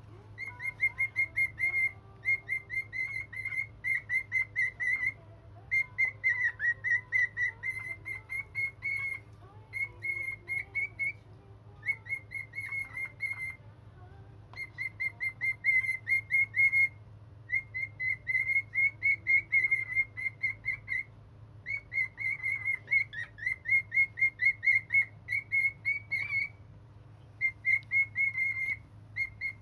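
A cockatiel chirping in quick runs of short, evenly repeated chirps, several a second. Each run lasts one to two seconds, with brief pauses between runs.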